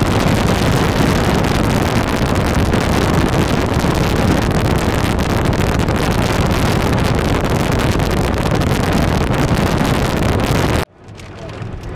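Strong wind buffeting the camcorder's microphone: a loud, steady roaring rush. It cuts off suddenly about a second before the end.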